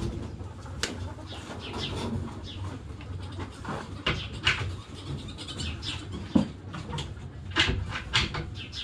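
Birds chirping in short, high, scattered calls over a low steady background rumble.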